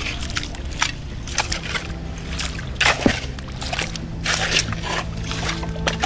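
A steel spade digging in wet mud: irregular wet squelches and splashes as the blade cuts into the waterlogged mud and lifts it out, the strongest about three seconds in.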